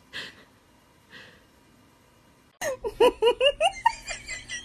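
Two short breathy puffs, then about two and a half seconds in a person breaks into quick, high-pitched giggling laughter, several short rising syllables a second.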